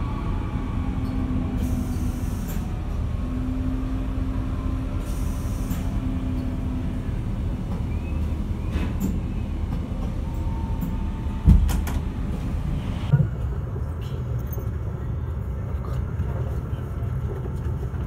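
Steady rumble of an ICE high-speed train running at speed, heard from inside the passenger car. A faint steady hum runs through the first several seconds, and two sharp knocks come about halfway through.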